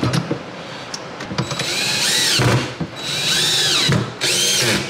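Cordless drill/driver driving screws through a cabinet door's concealed hinge, after a few light clicks of handling. The motor runs three times in short bursts, and each whine rises and then drops in pitch.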